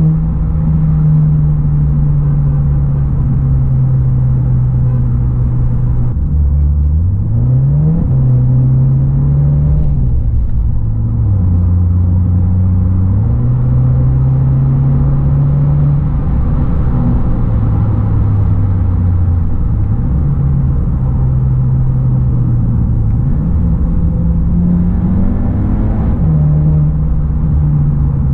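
Skoda Octavia RS245's 2.0 TSI turbo four-cylinder through a Milltek and Borla custom GPF-back exhaust, heard from the rear seat inside the cabin: a steady low drone while driving. Its pitch climbs as the revs rise about seven seconds in and again near the end, and steps down in between.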